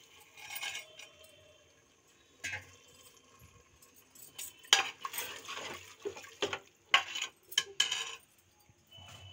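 A metal ladle stirring chickpea curry in a pressure cooker, clanking and scraping against the pot's metal sides in a string of sharp knocks, loudest about five and seven seconds in.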